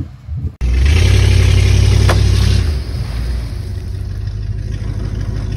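Ford Ranger pickup's engine revving hard as the truck ploughs through deep muddy water, with a rushing of water. It starts suddenly about half a second in and eases to a lower, steadier run after about three seconds.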